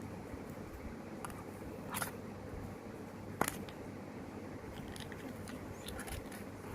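A small stylus package being cut and opened by hand: light handling noise, with two sharp clicks about two and three and a half seconds in, then a run of small ticks, over a steady low hum.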